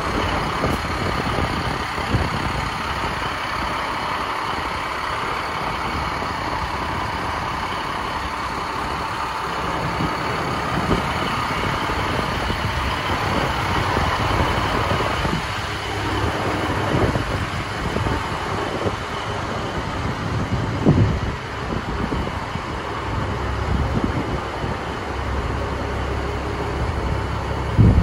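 Diesel semi truck idling steadily, with a few short knocks, the loudest near the end.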